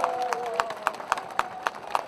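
Audience applauding in a small room, the separate claps distinct and thinning out.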